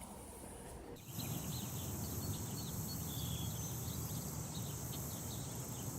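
Outdoor ambience starting about a second in: a steady high insect chorus with many short bird chirps over a low rumble.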